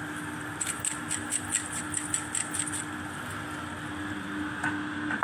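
Black pepper shaken from its container over a frying pan: a quick run of about a dozen crisp ticks, some five a second, lasting about two seconds, over a steady low hum.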